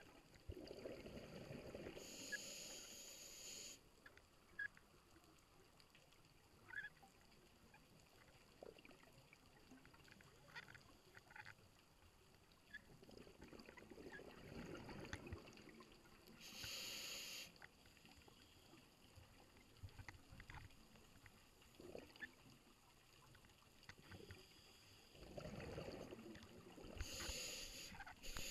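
Scuba diver breathing through a regulator underwater: three slow breaths about twelve seconds apart, each a low rumble followed by a higher hiss, with faint scattered clicks between.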